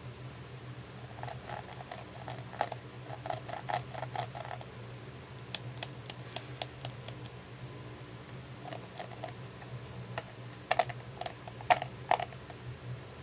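Fingers and nails tapping and clicking on a hard plastic toy handbag case, in scattered runs of quick clicks with the sharpest few near the end. A steady low hum sits underneath.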